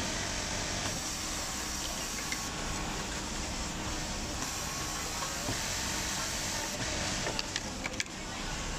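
Industrial single-needle sewing machines running, a steady mechanical whir with a few light clicks near the end.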